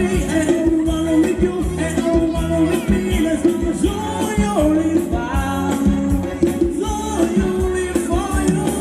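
Live Thai ramwong band playing upbeat dance music, with a steady drum beat and a singer.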